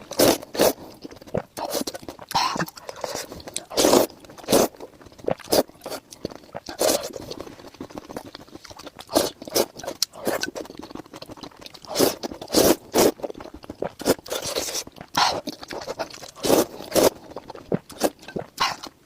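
A person slurping noodles in spicy soup, with many short, loud slurps at irregular intervals, often less than a second apart, and quieter chewing between them.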